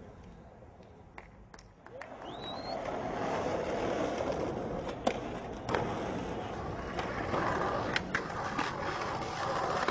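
Skateboard wheels rolling over pavement, the rolling growing louder about two seconds in, with sharp clacks of the board about four times.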